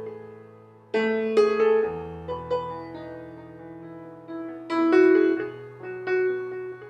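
Background music with a piano or keyboard playing slow, held chords, struck afresh about a second in and again near five seconds.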